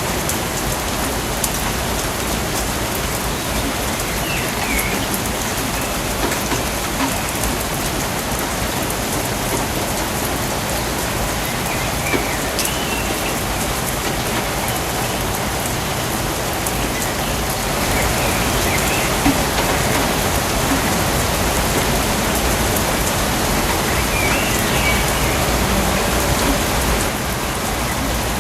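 Steady rainfall, a dense even hiss of drops, with a few short high chirps now and then. It grows a little louder for several seconds past the middle.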